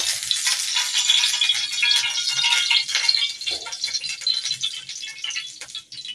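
Cooking oil sizzling and crackling as it is poured into a hot frying pan over a gas burner: a dense spatter of tiny pops that eases a little near the end.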